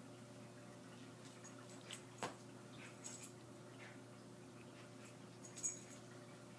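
Two small dogs play-fighting: faint scuffling with a few brief, sharp sounds, the loudest a little over two seconds in and near the end.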